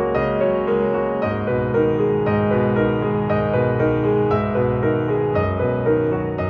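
Background piano music, held notes changing every second or so.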